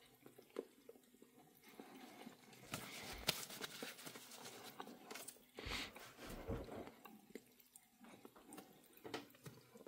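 Faint, irregular chewing of a last mouthful of MRE jalapeño pepper jack beef patty rolled up with bacon cheese spread, mostly from about two seconds in onward.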